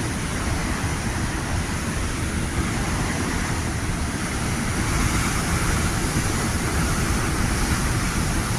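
Big Atlantic waves breaking, a steady rush of heavy surf that swells a little about five seconds in.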